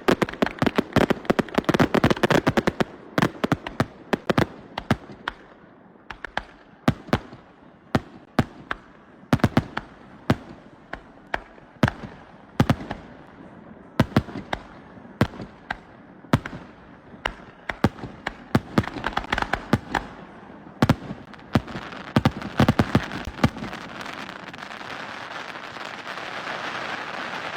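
Fireworks display: rapid volleys of sharp bangs and cracks, densest at the start and then coming in irregular clusters. Near the end the bangs thin out and a steady rushing noise swells.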